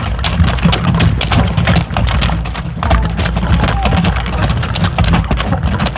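A flock of hens clucking close to a microphone, with many sharp taps and clicks throughout.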